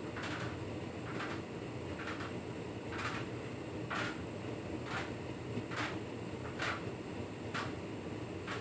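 Hotpoint Ultima S-Line tumble dryer running, its drum turning with a steady hum, and a sharp knock about once a second as the tumbling load strikes the drum.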